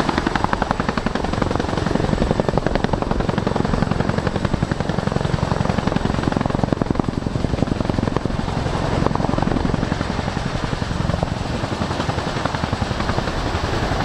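Boeing CH-47 Chinook's tandem three-blade rotors and twin Lycoming T55 turboshaft engines running, with a rapid, even rotor beat.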